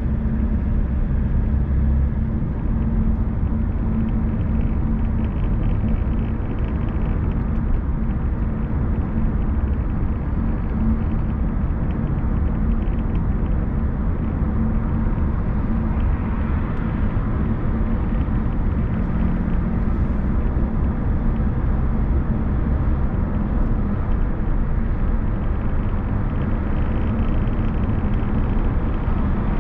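Car driving on the road: a steady low rumble of engine and tyres.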